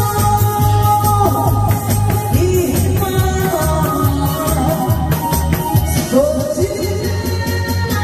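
A song sung through a PA over a backing track with a steady beat and bass, the voice gliding between notes.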